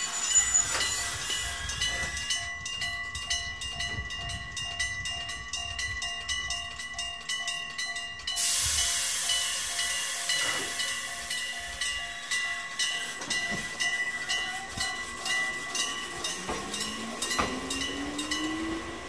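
Japanese level-crossing warning bell ringing in a rapid, even rhythm beside a standing Hokuriku Railroad 7000-series electric train. About eight seconds in, a sudden hiss of compressed air starts and slowly fades. Near the end a rising motor whine as the train starts moving.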